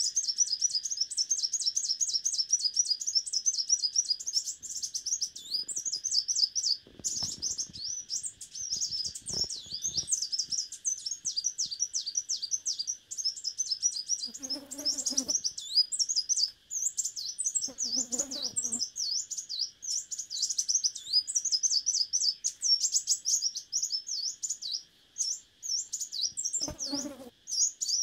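Leafbird singing a rapid, continuous high warbling song of quick chirps and slurred notes, over a steady high insect drone.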